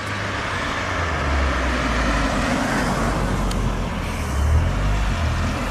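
Cars passing close by: a steady hiss of tyres on the road under a low engine rumble that swells about a second in.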